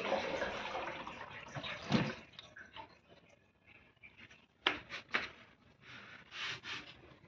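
Water running and splashing, fading out after about two and a half seconds, followed by a few sharp knocks.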